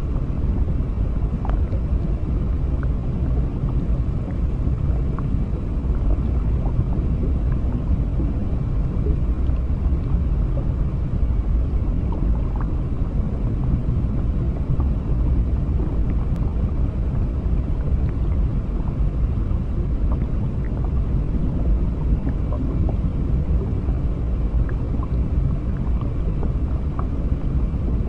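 Underwater ambience: a steady, deep rumbling wash of water noise with faint, scattered ticks and pops through it.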